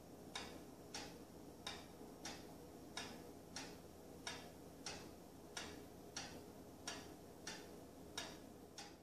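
Mechanical wind-up Regulator pendulum wall clock ticking steadily, about three ticks every two seconds: the noisy ticking of its escapement.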